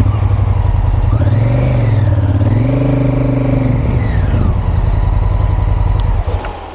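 Twin-cylinder adventure motorcycle engine pulling away under throttle: the revs climb, dip briefly at a gear change, climb again and settle into a steady run, and the engine sound drops away sharply near the end.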